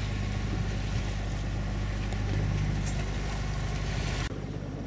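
Sailing yacht under way at sea: a steady low engine drone under a rush of wind and water. The sound drops suddenly about four seconds in.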